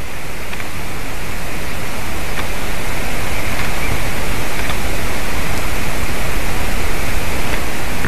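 Wind rushing steadily through pine treetops and over a nest camera's microphone: a loud, even hiss with a low rumble that swells slightly. A few faint ticks are heard over it.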